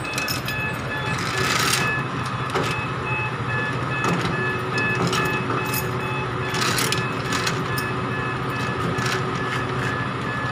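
Steel chain and a ratchet chain binder clinking and clicking in short bursts as the binder is worked to tighten a load chain. A steady low hum, typical of a truck's idling diesel engine, runs under it.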